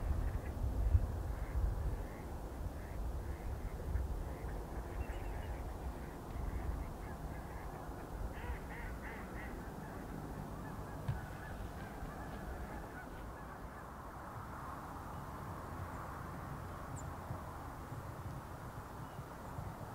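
A flock of geese honking as it flies over: a run of short, repeated calls that thin out about halfway through.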